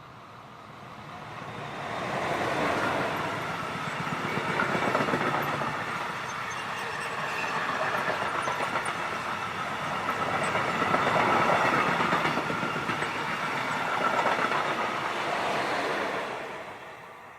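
A train passing close by: the rolling noise builds up over the first couple of seconds, stays loud with slow swells as the cars go past, and dies away near the end.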